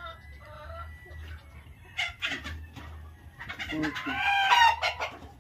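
Chickens clucking, with a loud rooster call from about three and a half seconds in.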